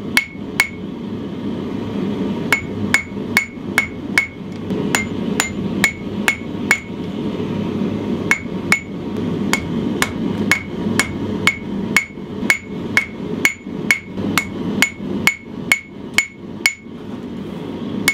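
Hand-hammer blows on red-hot steel, a bowie knife crossguard held in tongs on the anvil horn, each strike ringing sharply, about two to three a second in runs that pause twice. The smith is straightening a downward curve in one arm of the guard. A steady low rushing noise runs underneath.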